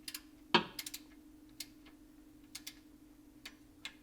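Hand tools clicking and tapping while a torque wrench is used on a fitting. About a dozen scattered sharp clicks, with one louder knock about half a second in, over a steady low hum.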